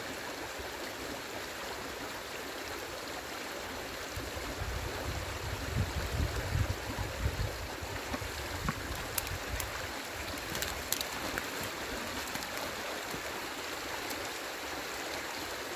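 Water of a rain-swollen stream rushing steadily. A low rumble swells for a few seconds near the middle, with a few faint clicks after it.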